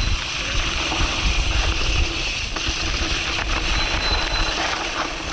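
An enduro mountain bike rolling fast down a dry dirt trail: tyres running over dirt and loose stones and the bike rattling, under steady wind rumble on the action-camera microphone.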